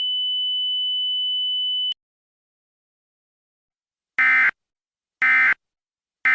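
A steady high-pitched tone that cuts off with a click about two seconds in. After a pause, three short warbling data bursts one second apart: the EAS SAME End of Message code, which closes the alert.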